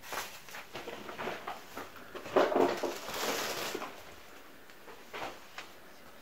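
Footsteps and rustling as someone moves through a small room full of junk, with scattered knocks and clicks, a louder clatter about two and a half seconds in and a sharp click near the end.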